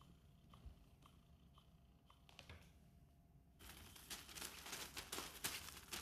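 A few faint ticks, then from a little past halfway a loud scratchy crinkling rustle as a kitten scrabbles and pounces over the fabric cover of a rotating-wand cat toy.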